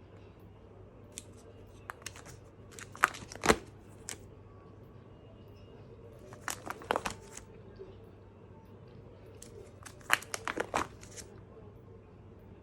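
Plastic trading-card sleeves and pages crinkling and clicking as they are handled, in three short clusters a few seconds apart.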